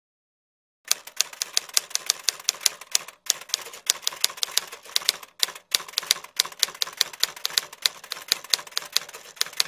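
Typing sound effect: rapid keystroke clicks, about six a second, starting about a second in, with two brief pauses, near three and near five and a half seconds in.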